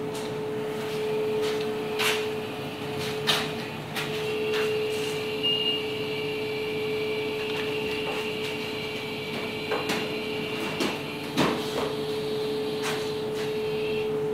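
Computer-to-plate equipment running with a steady hum, a higher whine from about four to eleven seconds in, and scattered clicks and knocks, the sharpest about three and about eleven seconds in.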